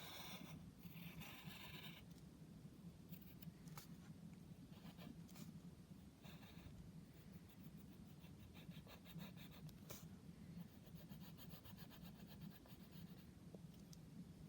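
Faint scratching of a drawing tool on paper: a few short strokes, then a longer run of rapid back-and-forth colouring strokes in the second half, over a steady low hum.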